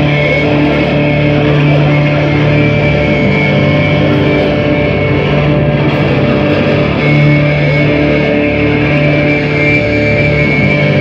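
Live drone rock played loud: a Travis Bean TB1000S aluminium-neck electric guitar through Marshall amplifiers, over dense, steady held tones that barely change.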